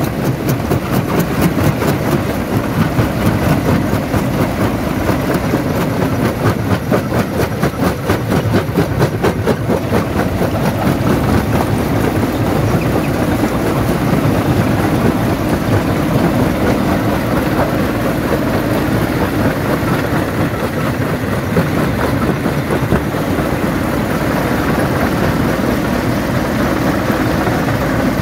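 Jaw crusher running and crushing stone: a loud continuous grinding rattle over a low machine drone. A dense rapid clatter fills the first ten seconds or so, then settles into a steadier grind.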